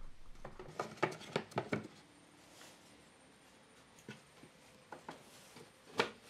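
Light wooden clacks and taps as slotted pine plywood partition strips are handled and slotted into a painted pine frame: a quick cluster of knocks in the first two seconds, a few faint taps, then one sharper knock near the end.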